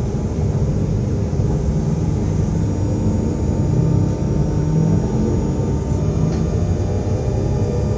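SNCF Z 20500-series (Z2N) double-deck electric multiple unit standing at the platform with its on-board equipment running: a steady low rumble. Faint thin high whines join it about two and a half seconds in.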